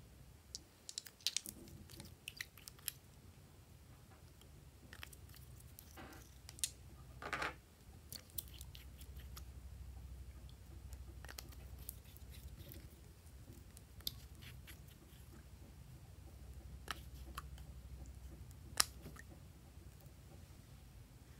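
Quiet handling noises: scattered small clicks and taps of plastic toy nail polish bottles and caps as the polish is brushed onto glossy slime, a few of them a little longer and scraping, over a low steady hum.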